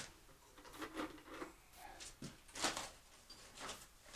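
Scattered light clicks and rubbing of hands handling PEX pipe and fittings, a few short handling noises about a second apart, the loudest past the middle.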